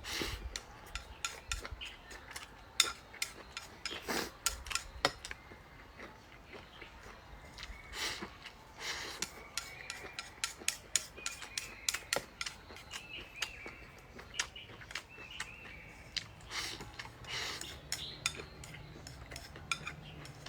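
Eating utensils tapping and clinking against a bowl and dish, many light irregular clicks.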